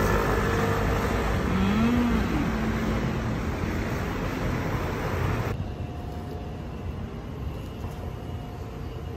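Street traffic: motor scooters and a small box truck passing, their engines running, with one engine note rising and falling about two seconds in. About five and a half seconds in, the traffic noise cuts off abruptly to a quieter, even outdoor background.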